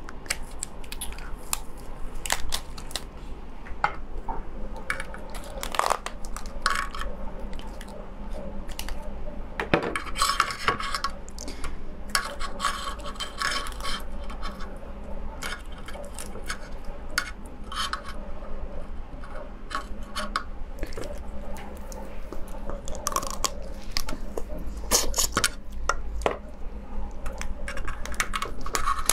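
A swimming crab's shell being cracked and pulled apart by hand, close to the microphone: the top shell prised off, legs snapped and the body split, in a long run of sharp crackles, snaps and scrapes that come in clusters.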